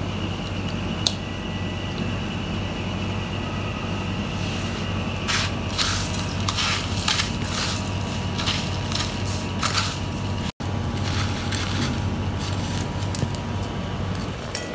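Chicken wings being dredged in dry crumbs: a run of crunchy, scraping strokes, thickest through the middle, over a steady low hum. The sound cuts out for an instant a little past halfway.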